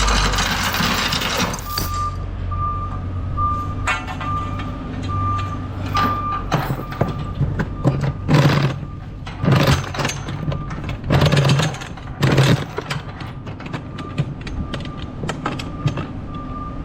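A vehicle's reversing alarm beeping steadily, about two beeps a second, over a low engine rumble. Four loud, short bursts of noise come in the middle.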